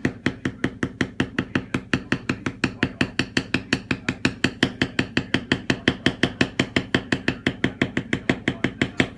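Mallet striking a steel leather-stamping tool into leather, a fast, steady run of sharp taps at about six a second, as a repeating pattern is stamped along a leather belt.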